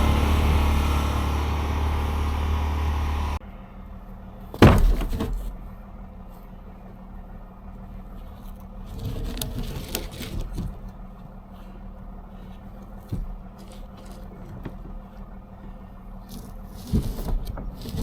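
A vehicle engine running steadily, cutting off abruptly about three seconds in. Then a single heavy thump and scattered knocks and scrapes of logs being handled and loaded.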